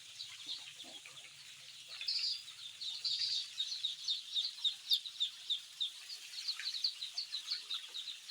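A flock of day-old chicks peeping constantly: many short, high, falling peeps overlapping several times a second, louder from about two seconds in.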